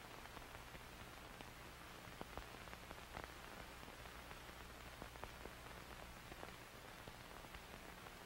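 Near silence: a faint steady hiss with a low hum and a few faint scattered clicks.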